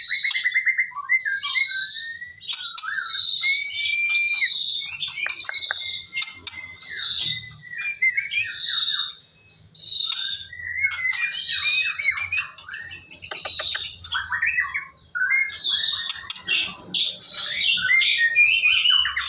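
Songbird singing a long, varied song of rapid trills, whistled notes and harsher chattering phrases, almost without a break, with a brief pause about nine seconds in.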